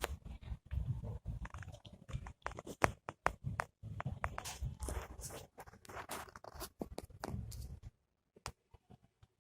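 A kitten's paws and claws scrabbling and tapping on a hard surface as it pounces and bats: irregular sharp clicks and crunchy scratching. It dies away about eight seconds in, leaving a few faint clicks.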